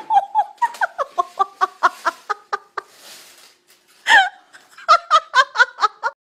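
High-pitched laughter in a quick run of ha-ha pulses lasting nearly three seconds, then a short pause and a second run of laughter near the end.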